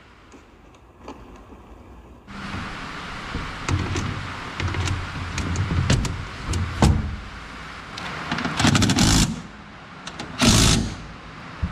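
Sheet-metal cover panel being set in place on an excavator, with scattered knocks and clicks, then a cordless driver with a socket running in two short bursts, a little past the middle and near the end, to drive the panel's bolts.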